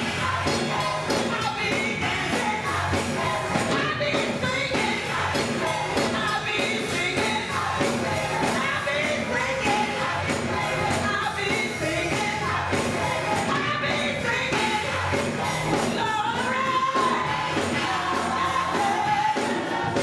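Gospel choir singing with keyboard accompaniment and a steady beat, a woman leading on a microphone.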